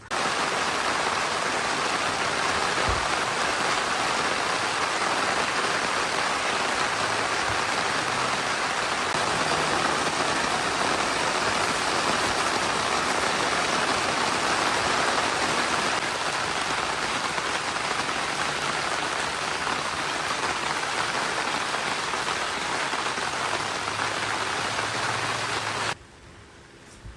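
Heavy rain falling steadily, a dense even hiss that cuts off suddenly about a second before the end.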